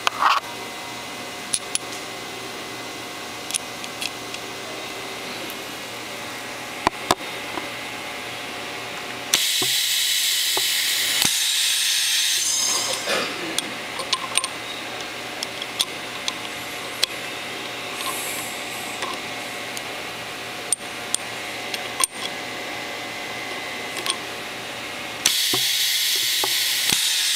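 Pneumatic press letting out two long blasts of compressed-air hiss as it cycles to press axles into the cradle. The first, about nine seconds in, lasts some three seconds; the second starts near the end. Small metal clicks of parts being set in the fixture sound over a steady shop hum.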